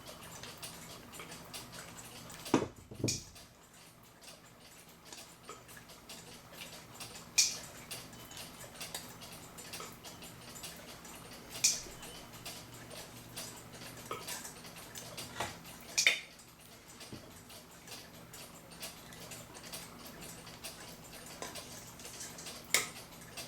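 Small clicks and taps of clock movement parts handled by hand as a gear is worked into place, at irregular times, with a handful of sharper clicks among many faint ones.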